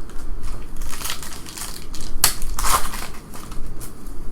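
Trading card pack wrappers crinkling and being torn open by hand, in several short bursts, the loudest about two and a half seconds in.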